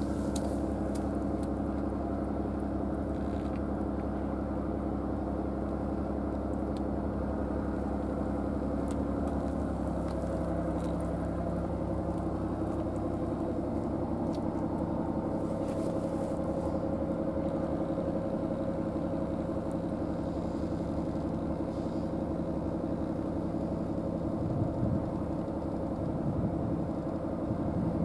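An engine idling steadily, a constant low hum whose pitch shifts slightly about ten seconds in, with a few faint clicks.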